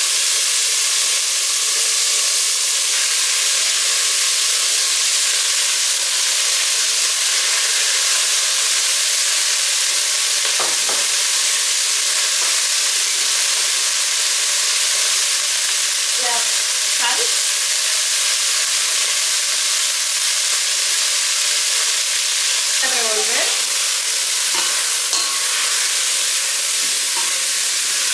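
Raw chicken pieces frying in hot vegetable oil in a stainless steel pot, a steady sizzle.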